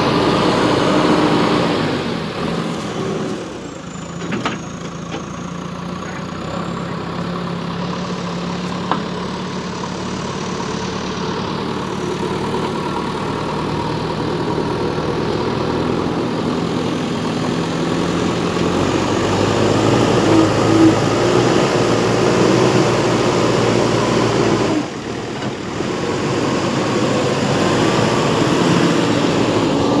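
JCB backhoe loader's diesel engine running as the front loader bucket pushes into and lifts sand, the engine note shifting with the work, with a brief dip about 25 seconds in.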